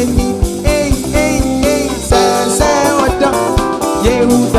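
Live Afro-highlife band playing an upbeat groove: electric bass, drum kit, keyboard and electric guitar over a steady, regular beat.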